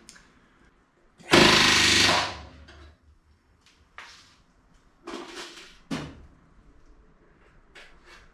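Pneumatic rivet gun hammering for about a second, setting a 3/32-inch flush aluminium rivet in the aluminium skin of a Van's RV-7A fuselage. A few shorter, fainter bursts and knocks follow.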